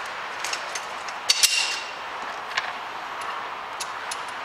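Steel square-tube legs and bolted steel plates of a homemade clamp knocking and clinking as they are moved and fitted together, with a louder double clank about a second and a half in that rings briefly.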